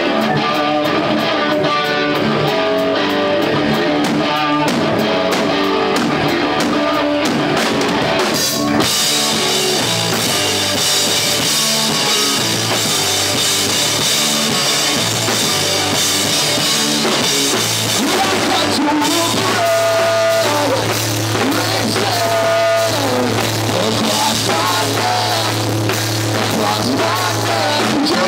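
Live rock band playing a song on electric guitars, bass guitar and drum kit. A quieter guitar-led opening gives way to the full band with cymbals about eight seconds in, and a held low bass note joins in the second half.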